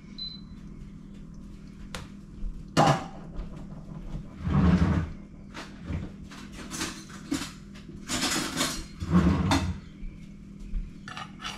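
Metal kitchenware knocking and clinking: pots, a strainer and utensils handled while fish stock is strained, with two heavier thumps about five and nine seconds in.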